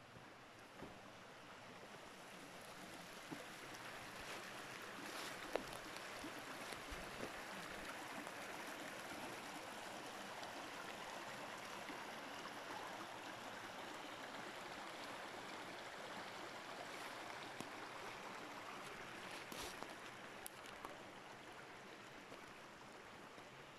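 Shallow rocky creek babbling over stones: a steady rush of running water that swells a few seconds in and eases off near the end.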